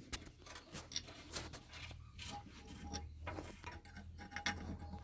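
Metal tools and pump parts clinking and tapping against each other in irregular clicks and knocks, a few leaving a short metallic ring, as the parts of a tractor hydraulic pump are handled and fitted.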